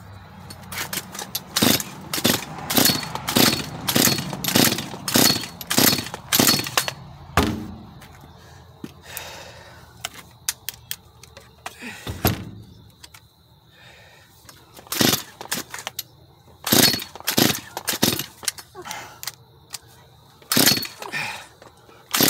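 Repeated pulls on the recoil starter of a Stihl MS 192 T two-stroke chainsaw, each a quick rasping crank of the engine that does not catch: the saw is hard to start. The pulls come in a fast series for the first several seconds, pause, then start again in the second half.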